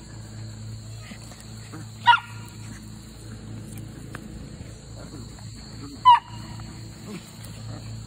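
Puppies giving two short, high-pitched yips, one about two seconds in and another about six seconds in, over a steady low hum.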